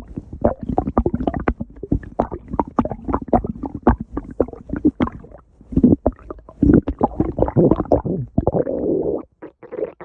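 Stomach growling loudly: a long run of gurgles and crackling squelches, with a longer, steadier rumble from about six and a half to nine seconds in.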